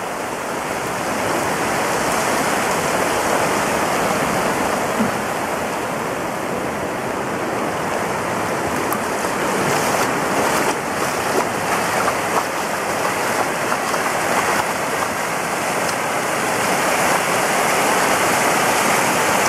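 Steady rush of floodwater: the River Calder in spate after bursting its banks, with brown water pouring across a flooded road.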